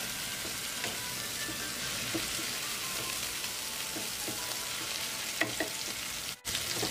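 Chopped tomatoes sizzling as they fry in oil with onions and ginger-garlic paste in a nonstick kadai, a steady hiss, with a wooden spatula stirring and scraping the pan now and then. The sound drops out for an instant near the end.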